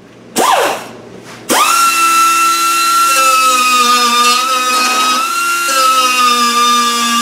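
Air die grinder with a small sanding disc grinding down fresh welds on steel body panels. A short blip that spins up and winds down comes first. From about a second and a half in there is a steady high whine that sags slightly in pitch now and then as the disc bites.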